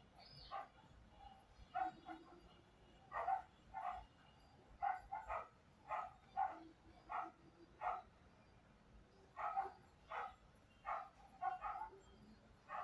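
A dog barking repeatedly, short faint barks coming about one or two a second with a few brief pauses.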